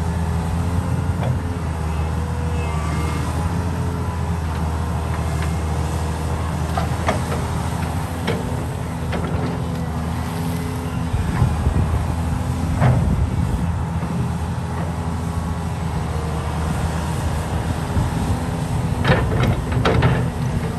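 Diesel engine of heavy construction machinery running steadily, with a few sharp metallic knocks, several of them close together near the end.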